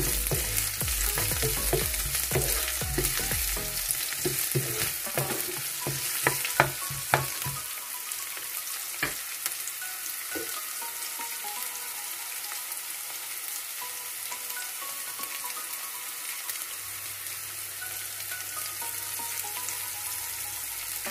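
Chopped red onions sizzling in hot oil in a nonstick kadai, stirred with a wooden spatula. The spatula knocks and scrapes against the pan through the first several seconds, then the frying settles into a steady sizzle.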